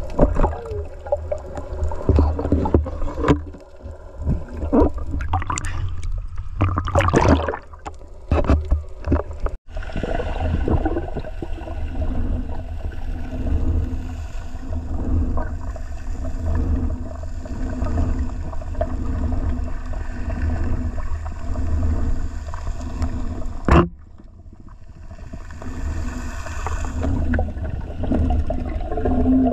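Underwater noise heard through a camera housing during a night dive: a constant low rumble of water moving past, with a run of knocks and clatters in the first ten seconds. Then a steadier stretch with a faint hum and one sharp knock about two thirds of the way in.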